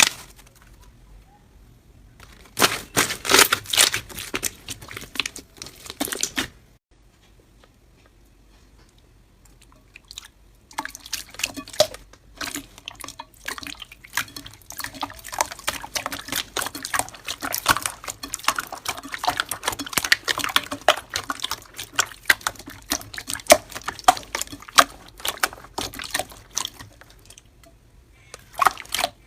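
Slime being squeezed and kneaded by hand, giving dense runs of wet, sticky clicks and pops: a short stretch a few seconds in, a pause, then a longer stretch that lasts nearly to the end.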